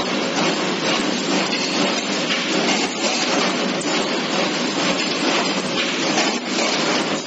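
CNC automatic steel wire bending machine running: a steady, loud mechanical clatter with many small clicks throughout.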